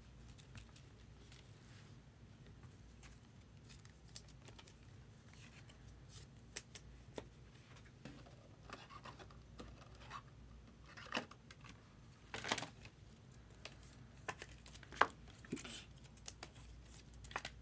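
Faint rustling, scraping and clicking of baseball trading cards and their packaging being handled, with a few louder scrapes in the second half over a low steady hum.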